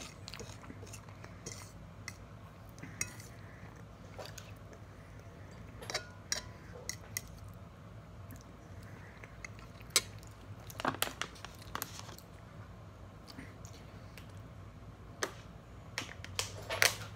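Eating at a table: a fork clicking and scraping on a plate now and then, with chewing between. Near the end comes a quick cluster of clicks and crinkles as a plastic water bottle is handled and drunk from.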